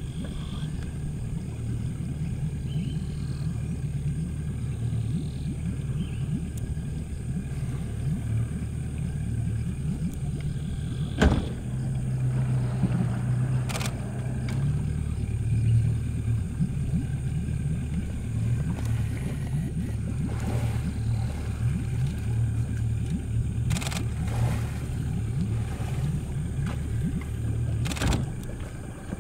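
A boat motor running at low speed with a steady low hum whose pitch shifts slightly around the middle, and a few sharp knocks scattered through it.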